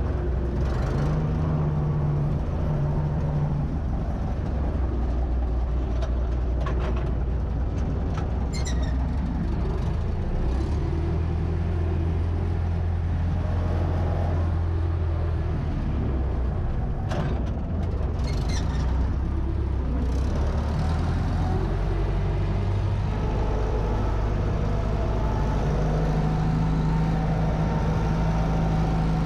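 Universal 650 tractor's four-cylinder diesel engine running steadily under load while ploughing, heard from inside the cab. Brief high squeaking clatters come twice, about a third of the way in and again about two-thirds in.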